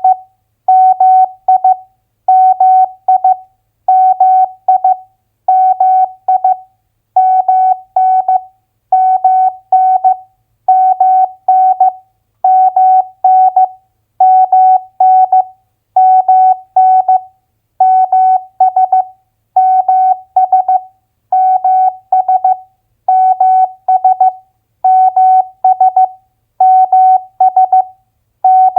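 Morse code practice tone at 15 words per minute, one mid-pitched beep keyed in dots and dashes, sending two-letter US state abbreviations. A short group comes about every second and a half, with silent gaps between.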